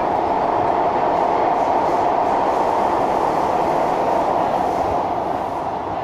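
MRT train running at speed between stations, heard from inside the carriage as a steady loud rumble of wheels on rail that swells a little in the middle and eases slightly near the end.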